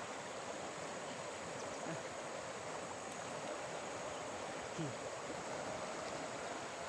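Steady rushing of a river in flood.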